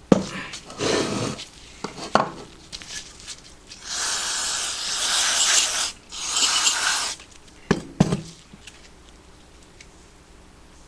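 Aluminium crankcase half clunking as it is turned over on a wooden board, then an aerosol spray can hissing in two bursts, about two seconds and then under a second, followed by two sharp knocks.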